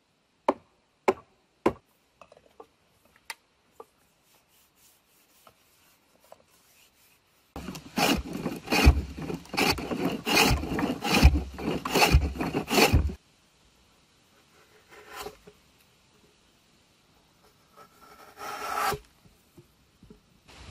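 A hand tool scraping wood: a few sharp taps, then about five seconds of quick rasping strokes, and two shorter scraping bursts near the end.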